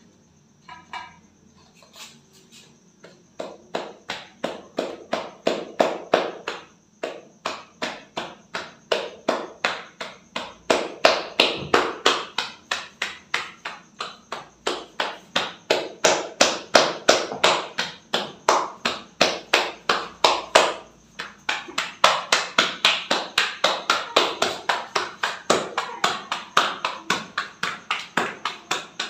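A ball of paratha dough slapped back and forth between the palms to flatten it by hand. The slaps come quickly and evenly, about three a second, starting about two seconds in and pausing briefly twice.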